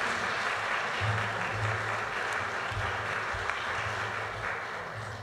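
A roomful of people applauding, the clapping thinning out and fading near the end.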